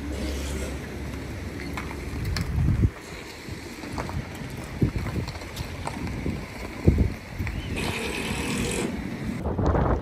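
Typhoon wind gusting across the microphone: a low rumbling rush that swells and drops, with a few sharp knocks, the loudest about three seconds in and again about seven seconds in.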